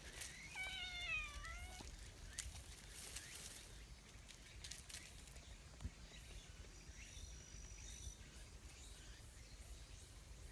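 A domestic cat meows once, a single wavering call lasting just over a second, near the start.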